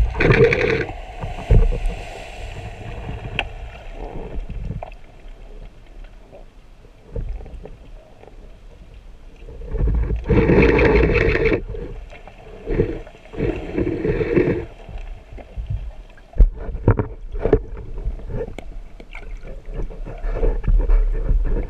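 Muffled underwater water noise against a camera housing mounted on a speargun, with loud bursts of rushing, bubbling water near the start and twice around the middle, and scattered light knocks.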